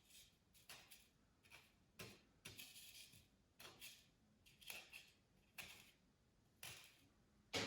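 Near silence with faint, scattered clicks and short rustles, about one every half second to second, as small model parts are handled.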